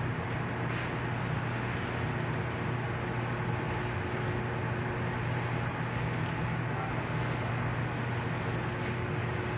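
A steady low mechanical hum with a faint, thin higher tone above it, unchanging in level.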